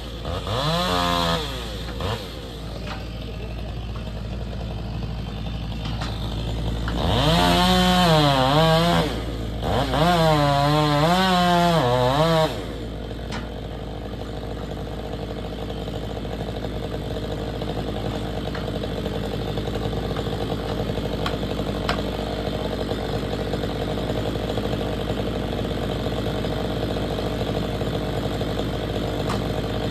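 Stihl MS 500i fuel-injected two-stroke chainsaw revved hard in three bursts, its pitch wavering up and down, then running steadily at idle from a little before halfway on.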